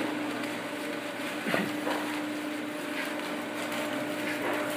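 Steady drone of foundry machinery with a constant low hum, and a single knock about a second and a half in.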